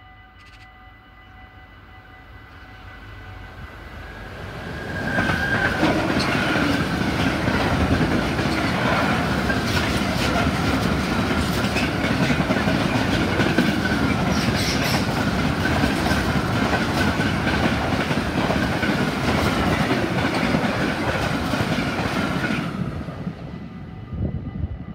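DB Cargo class 189 electric locomotive and its train of empty coal hopper wagons passing close by. The sound grows louder over the first few seconds, then holds as a long steady run of wheels clattering over the rails with a high steady whine. It drops away sharply near the end as the last wagon goes by.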